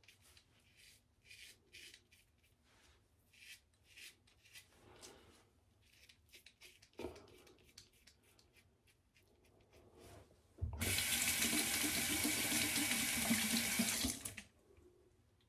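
Faint, irregular scrapes of a multi-blade cartridge razor drawn over lathered stubble. About ten seconds in, a bathroom sink tap runs steadily for about three and a half seconds, then is shut off.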